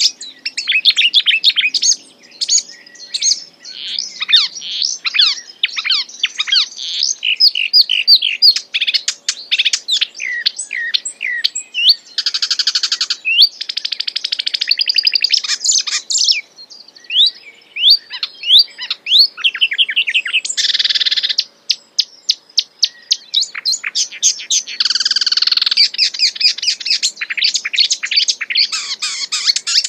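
Songbird singing continuously: a rapid, varied run of high chirps and whistled notes, broken by several buzzy trills and a few short pauses.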